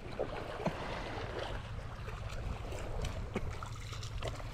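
Shallow sea water lapping and trickling gently, with a steady low rumble and a few faint clicks.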